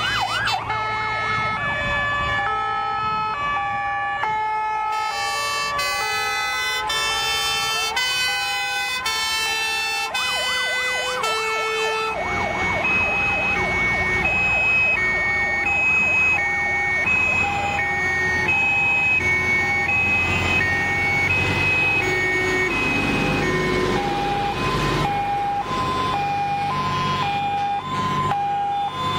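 Several fire engines' sirens sounding at once as the trucks drive past: overlapping two-tone sirens stepping back and forth between two pitches, with rising and falling wails mixed in. Truck engines rumble underneath, louder in the second half.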